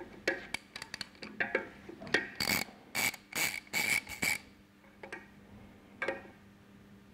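Ratchet wrench with a hex bit ratcheting as Allen screws are loosened on a pump flange: scattered metal clicks, then a run of quick ratcheting bursts from about two and a half seconds in that stops near the middle.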